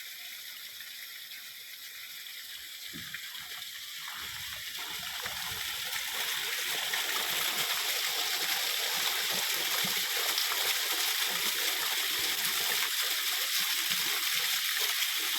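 Small waterfall rushing and splashing steadily, growing louder over the first six seconds or so and then holding steady.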